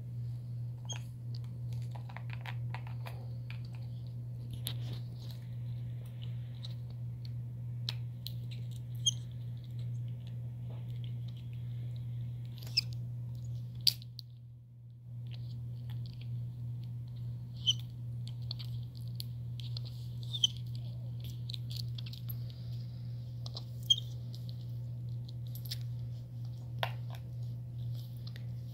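Capuchin monkey chewing and biting on a plastic lid, with scattered sharp clicks, over a steady low hum.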